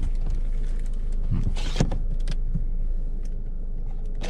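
Steady low hum inside a car cabin with the car started, and a few short clicks and knocks from interior fittings being handled, about one and a half to two and a half seconds in.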